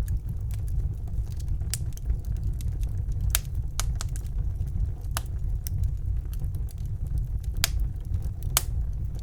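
Wood fire crackling in a fireplace: sharp snaps and pops at irregular intervals over a steady low rumble of the burning fire.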